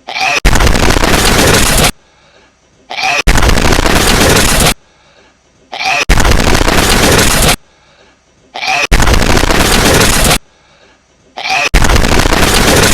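A looped hedgehog sneeze, played over and over: five loud, noisy blasts about three seconds apart, each lasting over a second, with a faint short sound in the near-quiet gap just before each one.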